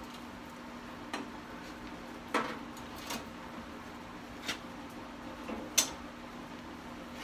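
Scattered metal clunks and knocks, about five, the sharpest near the end, from handling a steel oil quench tank while fishing heat-treated blades out of the oil. A steady low hum runs underneath.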